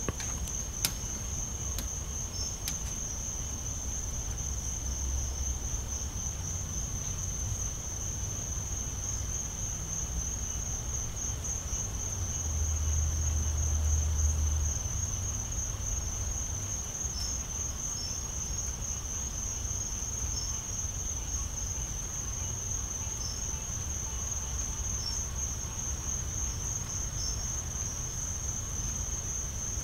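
Crickets chirping in a steady, high, continuous trill, over a low rumble that swells for a couple of seconds about halfway through.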